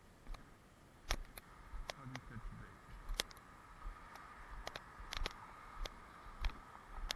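Irregular light clicks and taps from an action camera's housing being jostled as it is carried. A faint steady tone joins about three seconds in.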